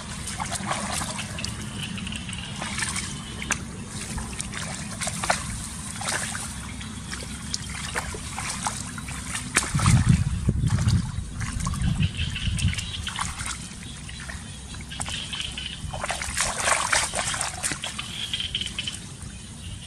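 Shallow water sloshing and trickling, with irregular splashes, as water is scooped and thrown out of a small rice-field pool by hand.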